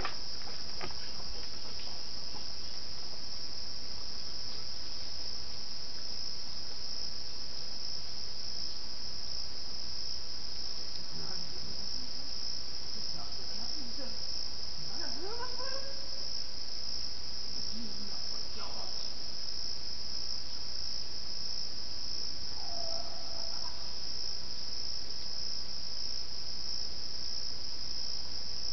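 Steady, high-pitched chorus of crickets. Over it, a handful of short, unidentified calls bend up and down in pitch around the middle, with one more a few seconds later.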